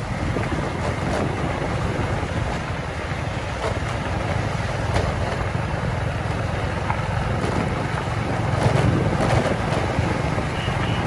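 Steady low wind rumble on the microphone from riding along a rough lane, mixed with the running noise of the motorbike it rides on.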